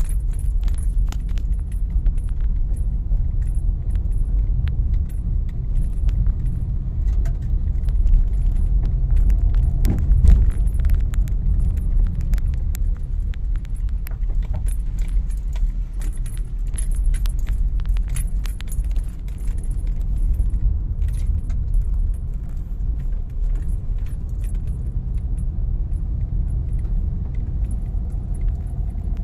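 A car driving through heavy rain on a potholed road, heard from inside: a steady low rumble with a constant scatter of ticks and rattles. There is a heavier jolt about ten seconds in.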